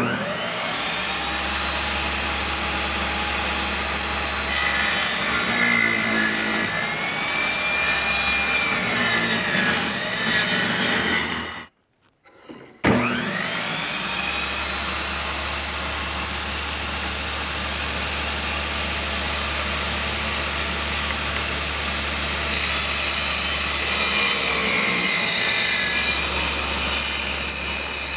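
Electric power saw cutting oak, its pitch dipping and recovering as the blade takes load. It shuts off about 12 seconds in and starts again a second later, spinning back up to speed.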